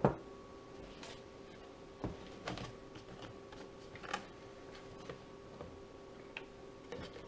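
A few light, scattered clicks and knocks from handling a plastic buttermilk jug and a glass measuring cup on a kitchen counter, over a faint steady hum.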